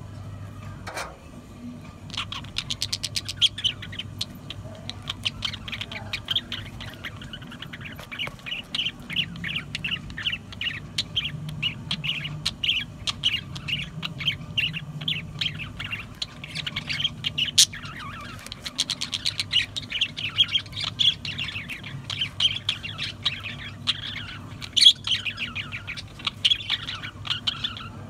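A flock of budgerigars chattering and warbling: a fast, nearly unbroken run of short chirps and squawks that starts about two seconds in.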